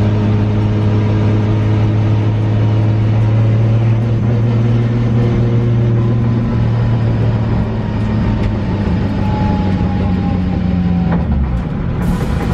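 Nissan 240SX driving, with a steady engine drone and road noise. In the second half the engine note falls slowly as the car eases off.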